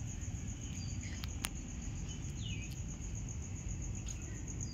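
Steady, high-pitched insect trill in even rapid pulses, over a low rumble, with a faint falling bird chirp about halfway through and a couple of sharp clicks just before it.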